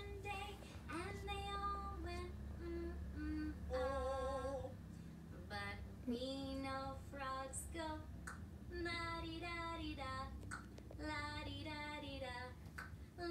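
A woman singing a children's song in a high, clear voice with long held notes, played through a television's speakers, over a steady low hum.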